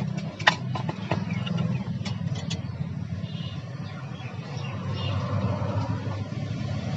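A steady low mechanical hum underneath, with a few light clicks and taps from the LED emergency light's housing and wires being handled, the sharpest about half a second in.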